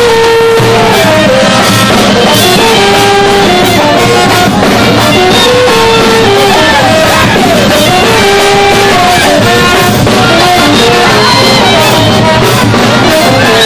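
Loud music playing throughout, with held melodic instrument lines over a dense, unbroken accompaniment.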